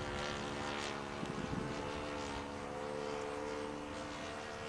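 A radio-controlled Piper Cub model airplane's engine and propeller make a steady, distant buzz as the plane flies overhead, its pitch drifting slightly.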